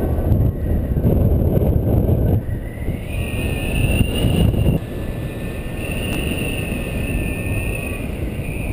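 Wind rushing over the camera microphone of a paraglider in flight: a loud, steady rumble with a faint whistle rising and falling in the upper range.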